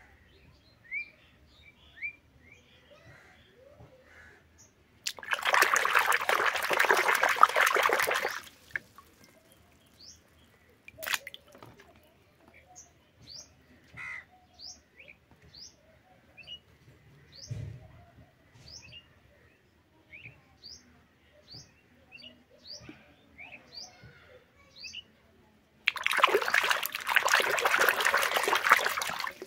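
A hand swishing and splashing water in a plastic tub, in two loud spells of about three and a half seconds each, one near the start and one near the end. Between them small birds chirp over and over in the background.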